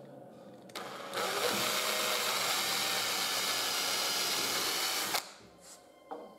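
Makita cordless drill running at speed, drilling through a wooden guide block into a larch board for about four seconds, then cutting off suddenly. A couple of light knocks follow.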